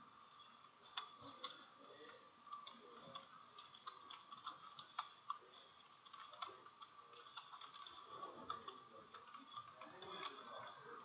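Faint computer keyboard typing: irregular keystroke clicks, a few a second with pauses, over a faint steady high hum.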